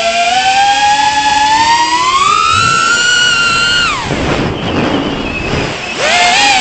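Brushless motors of a 3.5-inch FPV quadcopter whining as the throttle is pushed up, the pitch rising for a couple of seconds. About four seconds in the throttle is cut and the whine drops away into a rushing noise as the quad falls, then the motors spin back up and the whine returns near the end.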